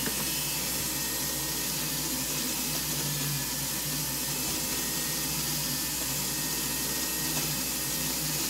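Rotary handpiece spinning a small rubber wheel against a ring's setting, a steady whirring hiss from the motor and the wheel on the metal.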